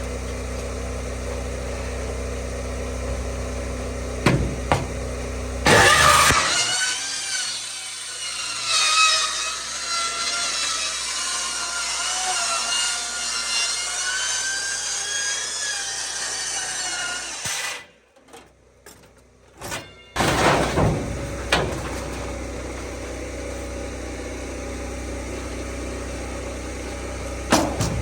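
Power saw cutting the culvert pipe, its whine wavering up and down with the load, for about ten seconds. Before and after it, the mini excavator's diesel engine runs steadily in the background.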